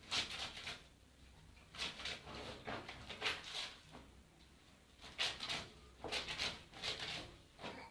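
Clothes being washed by hand: wet fabric rubbed and swished in a basin of water in short strokes, roughly one a second, some in quick pairs.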